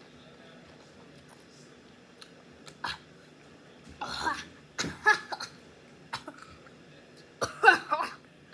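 A person coughing and clearing their throat in several short bursts, the loudest near the end, after eating very spicy chips.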